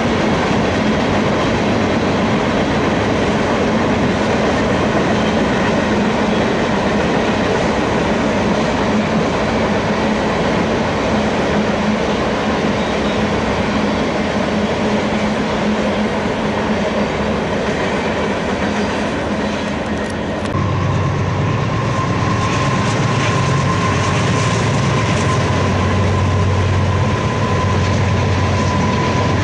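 Freight train cars, tank cars and autoracks, rolling past: a steady rumble and rattle of steel wheels on rail. About two-thirds of the way through, a steady high-pitched tone joins it.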